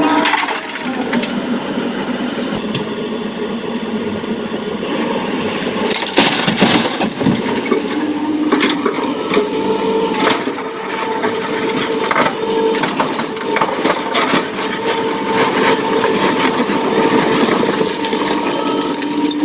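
Excavator engine and hydraulics running with a steady whine that shifts in pitch, while rock crunches, scrapes and clatters as it is loaded into a dump truck.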